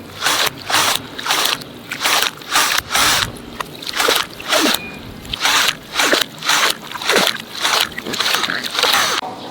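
A rapid run of short, sharp squishing and scraping noises, about two to three a second, that stops shortly before the end.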